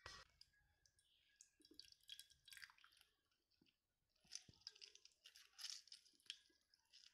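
Faint squishing and crackling of a lemon half being squeezed, heard as scattered short clicks and wet crackles.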